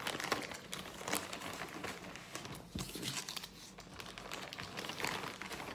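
Foil trading-card pack wrapper and a plastic zip-top bag crinkling as they are handled, a run of small irregular crackles.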